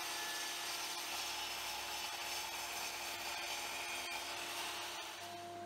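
Electric compound mitre saw (drop saw) with its blade cutting down through a block of cypress pine post: a steady sawing noise that eases off about five seconds in.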